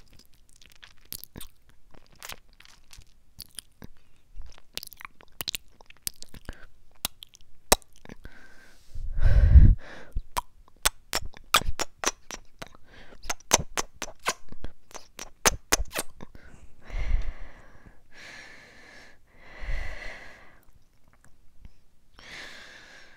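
ASMR mouth sounds close into a lavalier microphone: a long run of sharp, wet mouth clicks and lip pops. These are broken by a few breathy puffs of air onto the mic, the loudest about nine to ten seconds in, with two more near the end.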